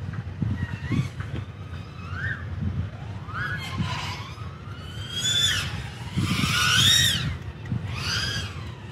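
3-inch FPV quadcopter's 1404 motors and props whining as it flies hard, the pitch sweeping up and falling back again and again with throttle changes. The loudest sweep comes about seven seconds in.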